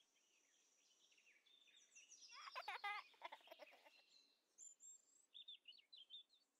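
Faint birdsong: scattered short chirps and trills, with one louder, fuller call about two and a half seconds in.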